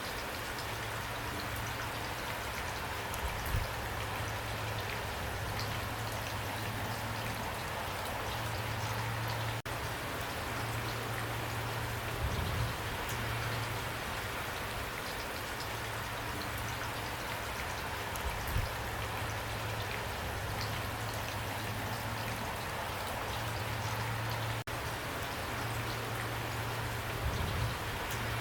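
Steady rain falling, an even patter of drops on a surface, with a few brief low thumps scattered through it. The sound dips out for an instant twice.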